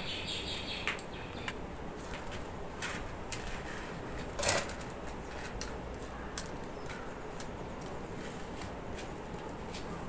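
Wood fire crackling under a cast-iron tawa in a clay firewood stove, with irregular sharp snaps over a low steady rumble and one louder crack about four and a half seconds in.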